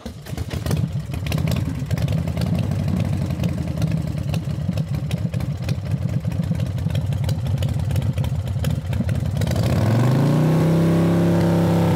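2017 Ural cT sidecar motorcycle's air-cooled boxer twin running with a fast, even pulsing; about ten seconds in it revs up and holds a steady, higher speed.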